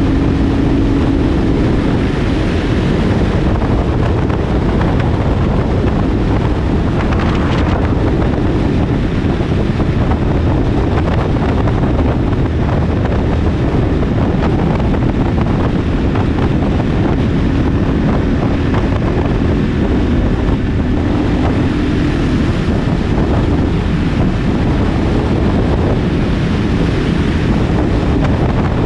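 Heavy wind noise on the microphone of a motorcycle-mounted action camera while riding, with the motorcycle's engine running at a steady pitch underneath.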